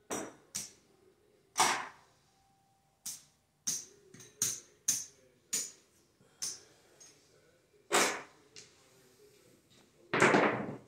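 Casino chips clicking as they are set down and stacked on a craps table, about a dozen separate sharp clicks. Near the end a pair of dice is thrown and rattles across the felt and against the table's end wall.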